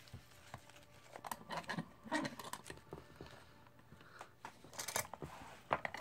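Stainless steel padlock being handled and clamped into a small bench vise with padded jaws: scattered metal clicks and knocks with rustling of the padding, loudest about two seconds in and near the end.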